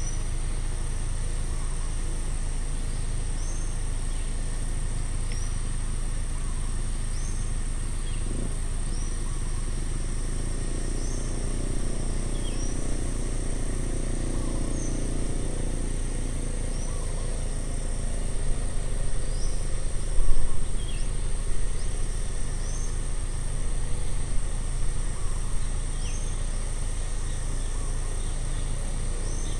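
Roadside outdoor ambience: a steady high insect drone with short bird chirps repeating every second or two over a low rumble. A low hum swells and fades midway, like a distant vehicle passing, and a few low bumps come about two-thirds of the way through.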